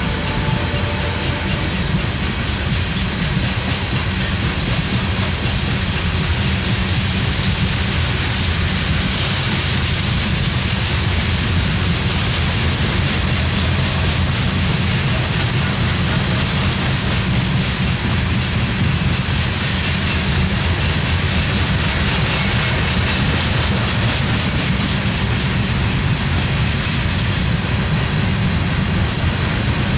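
Loaded coal gondola cars of a freight train rolling past: a steady, loud rumble of wheels on rail with a fine, regular clicking of wheels over the rail joints.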